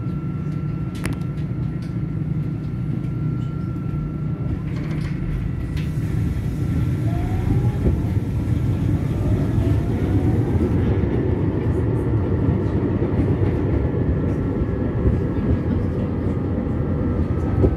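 Eurotram running along street track, heard from on board: a steady rumble of wheels on rail with the traction motors' whine rising in pitch as it picks up speed, getting louder from about six seconds in.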